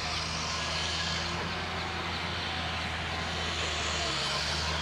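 A motor engine running steadily with a low hum and a hiss, briefly dipping in pitch about four seconds in.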